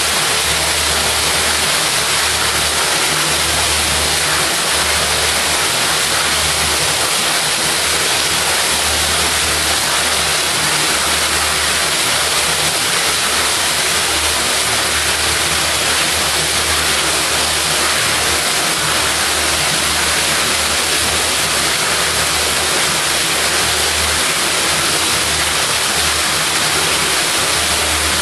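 Loud, steady rushing and splashing of water in a sewage lift station's wet well, stirred by a system driven by a 2 HP grinder pump, with a low rumble underneath that comes and goes every second or two.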